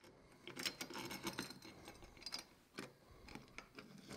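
Faint clicks and light taps of the coping sled's metal top-track pieces being handled against the base and its risers. A quick cluster comes about a second in, and a single sharper knock near three seconds.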